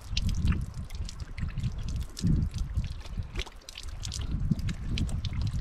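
Water trickling from a PVC pipe spigot fed by a plastic water jug, splashing over hands being rinsed, with many small scattered splashes and drips. A low, uneven rumble runs underneath.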